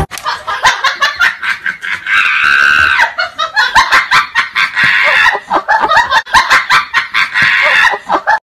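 Loud, hearty laughter, coming in quick repeated pulses.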